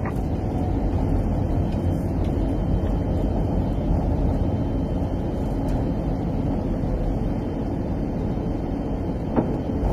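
Steady low rumble on an Airbus A380's flight deck, with no distinct events.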